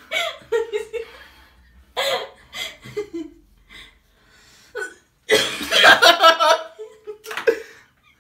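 Laughter in short bursts, with a longer, louder fit of laughing about five seconds in.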